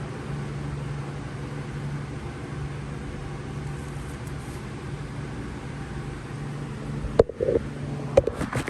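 Steady fan-like hum and hiss. Near the end come a few sharp clicks and knocks as the alarm keypad's plastic case is handled and tried against its mount.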